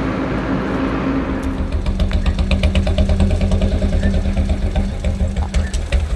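Royal Enfield Bullet Electra's single-cylinder engine running with an even, pulsing exhaust beat that comes through strongly from about two seconds in.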